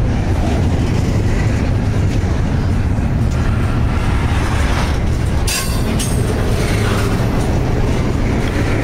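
BNSF double-stack intermodal freight train of DTTX well cars rolling past close by: a steady, loud rumble of steel wheels on the rails, with a brief hiss about halfway through.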